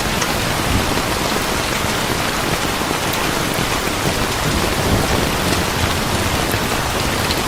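Steady rain falling, an even dense hiss with no break.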